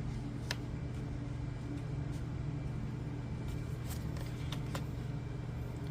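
A steady low room hum with a few faint clicks and taps of oracle cards being handled as the next card is drawn.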